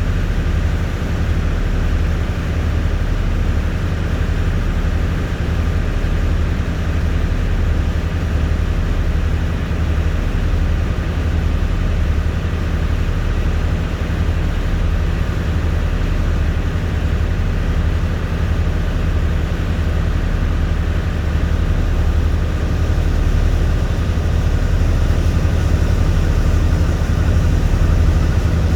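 A boat's engine running steadily, heard on board: a low, even throb with a steady hiss over it, growing a little louder near the end.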